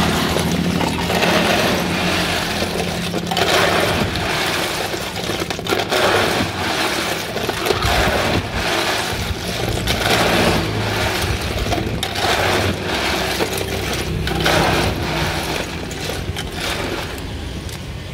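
A plastic scoop digging into a tub of ice cubes, the ice clattering and scraping in repeated short bursts about once a second, over a steady low engine hum.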